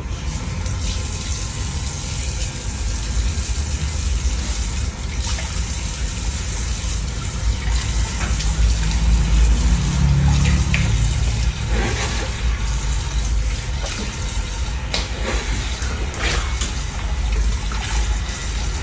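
Water running steadily from a tap into a sink basin, with a few brief clatters.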